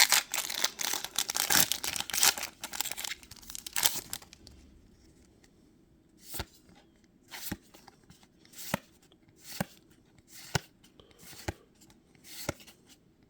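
Pokémon booster pack wrapper being torn open and crinkled for about four seconds, then cards being flicked through one at a time, a short snap roughly once a second.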